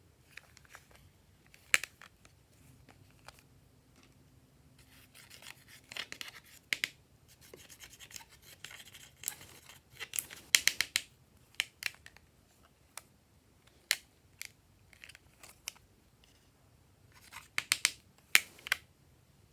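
Hands working glossy slime: scattered sharp sticky clicks and small pops, with crackling, scratchy bursts as it is stretched and pressed, in three busier spells.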